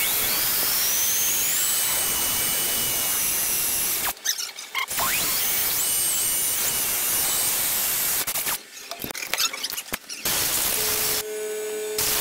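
Cordless Makita drill boring holes through the scooter's metal frame: two long runs of about four seconds each with a short pause between, then a few short bursts and a brief last run near the end. A high whine rises as the drill speeds up at the start.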